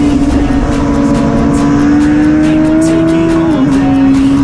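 Suzuki GSX-R600 inline-four engine running at high revs under acceleration, its pitch climbing slowly, then dropping sharply about three and a half seconds in as the bike shifts up a gear. Heavy wind rush lies over it.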